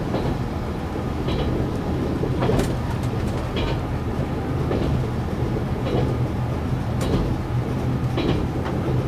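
KiHa 187 diesel railcar running at speed, heard from inside the front of the train: a steady low diesel drone with clacks of the wheels over rail joints about once a second.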